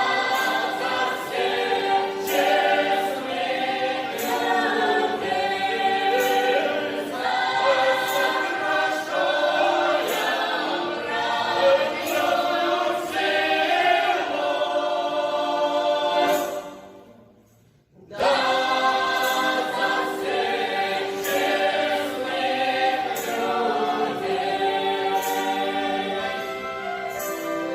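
A folk choir singing in parts with a faint regular beat. The singing fades away about two-thirds of the way through, then starts again abruptly a second later.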